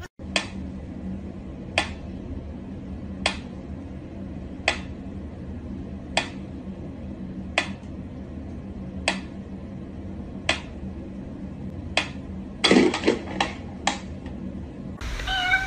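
Mechanical pyramid metronome ticking slowly, one sharp tick about every second and a half over a low steady hum. A little before the end comes a quick cluster of louder knocks and rattles, and then two more ticks.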